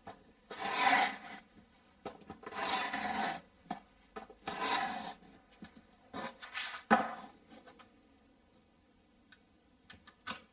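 A blade drawn through plasterboard in four separate rasping strokes while the edge of a hole is being cut straight, with a sharp click after the last stroke and another near the end.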